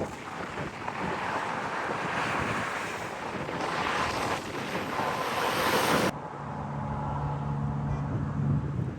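Wind buffeting the microphone, a dense rushing noise that grows louder and then cuts off abruptly about six seconds in. After it comes a quieter steady low hum for a couple of seconds.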